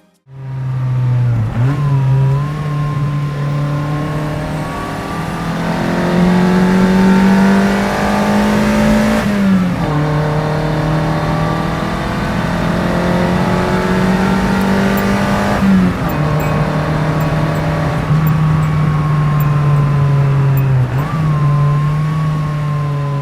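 Toyota Corolla FX-GT's 4A-GE twin-cam 16-valve four-cylinder engine driving at high revs. The engine note climbs slowly and drops abruptly about four times, as at gear changes.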